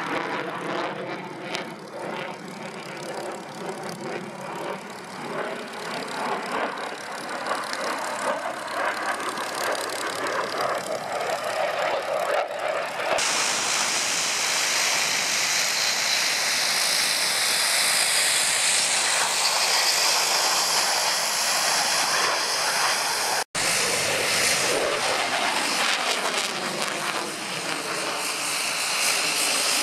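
Dassault Rafale jet fighter's engines running through its display, then a high whine that glides in pitch as it passes on approach. After an abrupt cut near the end, the two turboprop engines and propellers of a Canadair water bomber running on the runway.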